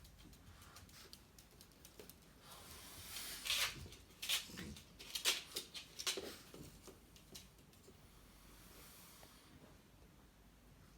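Pet dogs at play, making a cluster of short, noisy breaths and scuffling sounds. They are loudest between about three and seven seconds in, then fall quieter.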